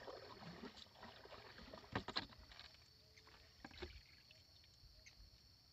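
Faint knocks and rustling as a fishing net is handled in a wooden canoe, with the sharpest knock about two seconds in and another a little before four seconds.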